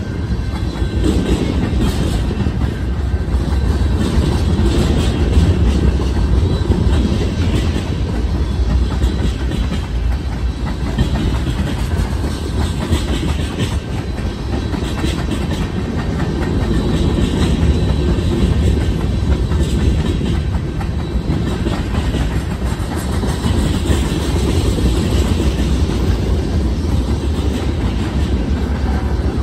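Freight cars (centerbeam flatcars, tank cars and covered hoppers) rolling past close by: a steady rumble of steel wheels on rail with repeated clickety-clack as the wheels pass over the track.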